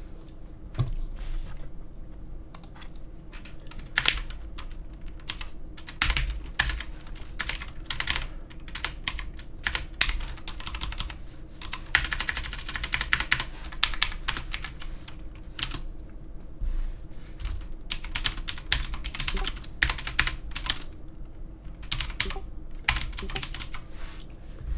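Typing on a computer keyboard: bursts of quick irregular key clicks, thickest in the middle, over a faint steady hum.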